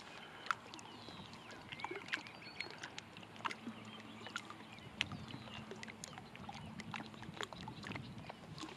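Small waves lapping against a rocky shoreline: faint, irregular little splashes and clicks. A faint steady low hum joins about four seconds in.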